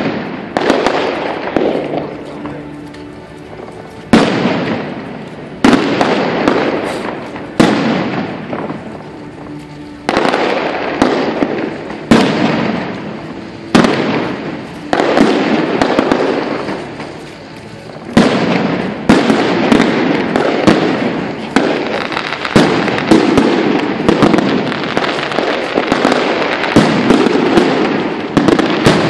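Fireworks display: aerial shells bursting with loud bangs every couple of seconds, each trailing off over a second or so with crackling. From about two-thirds in the bangs come thick and fast into a near-continuous barrage.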